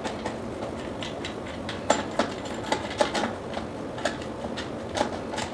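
Irregular light clicks and taps of hand work on a vertical-blind mounting bracket at the top of a window frame, a few to the second, over a steady hiss.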